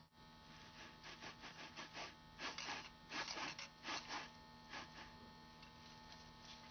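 A run of short scraping strokes, some in quick pairs and threes and strongest in the middle, over a steady low hum.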